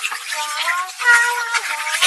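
Background music: a simple melody of held, stepping notes over a grainy hiss.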